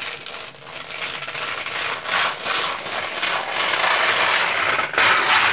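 Protective plastic film being peeled off a PC case's glass side panel: a continuous crackling, tearing hiss with a few brief dips, louder near the end.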